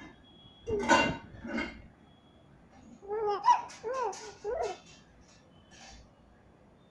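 Infant babbling: two short breathy sounds about a second in, then a run of short high-pitched coos that rise and fall around the middle.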